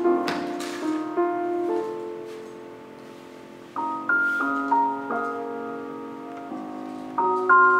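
Slow, gentle keyboard music in a piano sound, playing a melody of held notes. It softens in the middle, then a brighter, louder phrase comes in about four seconds in and again near the end.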